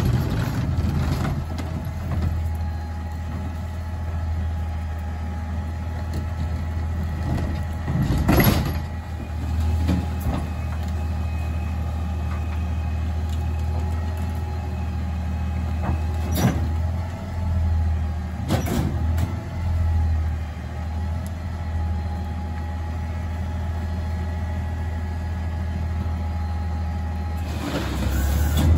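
CNG Peterbilt 520 McNeilus rear-load garbage truck running at the curb, a steady low engine hum with a whine from the hydraulics as the packer blade cycles. A few sharp clanks or hisses break in, one about a third of the way through and two more past halfway.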